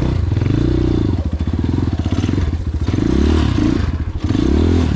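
A new, cheap 250cc dirt bike engine being broken in, its revs rising and falling with the throttle as it is ridden over rough ground. It drops to a low, chugging idle about a second in and again about four seconds in.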